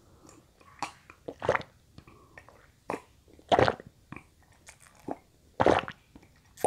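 A person gulping water from a glass at close range: three loud swallows about two seconds apart, with small wet mouth clicks between them.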